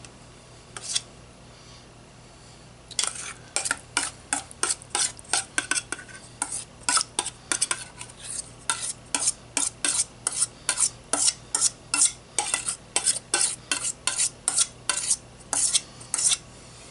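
Metal spoon scraping and clinking against a stainless steel mixing bowl as mashed butternut squash filling is scraped out, a fast run of strokes at about two or three a second starting about three seconds in.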